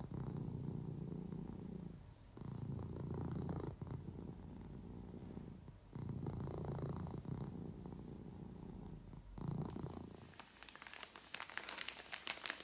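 A low, rough rumble in stretches of about one to three seconds with short breaks between them. Near the end, a plastic mailing bag crinkles as it is handled.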